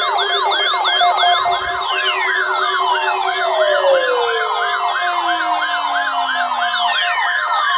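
Electronic siren yelping rapidly, about three sweeps a second, overlaid with long falling wails that slide down in pitch over several seconds: one begins about two seconds in and another near the end.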